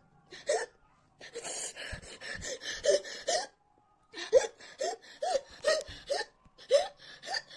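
A woman's hiccups and gasping breaths: a breathy, panting stretch first, then a run of short voiced hiccups, roughly two a second. She is gasping from the burn of an extremely hot chili chip and says she can't breathe.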